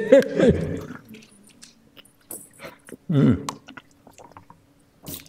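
Small clicks and handling noises from a plastic water bottle as its cap is twisted and the bottle is put down on the table, with a man's voice briefly at the start and a short voiced sound about three seconds in.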